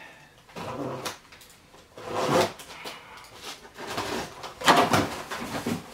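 Cardboard box being opened by hand: its flaps and tape rustling and scraping in a few short bursts, the loudest near the end.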